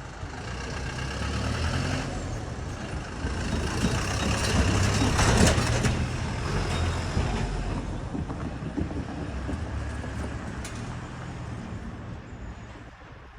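Japanese railway level crossing warning bell ringing its repeated kan-kan-kan, with the rumble of a passing Keisei train swelling to its loudest about five seconds in and then fading.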